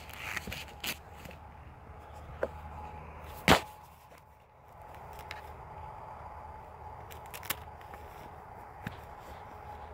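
Scattered sharp clicks and handling knocks from a small flashlight being reassembled after a battery change, with one loud click about three and a half seconds in.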